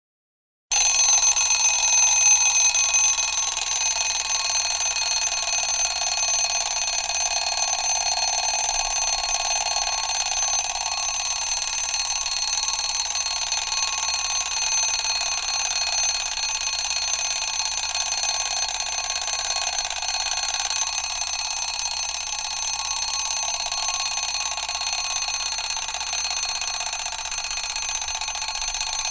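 Alarm clock ringing continuously and loudly without a break, starting just under a second in.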